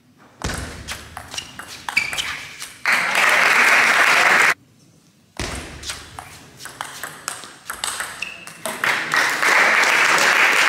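Table tennis rally: the ball clicks off bats and table in quick succession, then applause breaks out about three seconds in. After a short break a second rally runs from about five seconds in and again ends in applause near the end.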